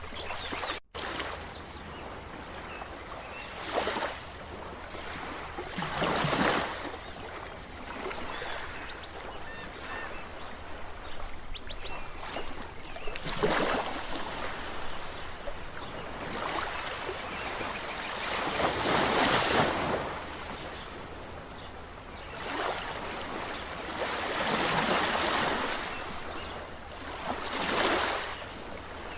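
Ocean surf: waves wash in and break one after another. Each one swells up and falls away, roughly every three to six seconds. The sound cuts out for a split second about a second in.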